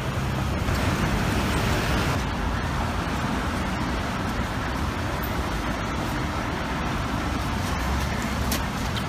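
Steady city street traffic noise: engines and tyres of passing cars, a little louder for about a second near the start.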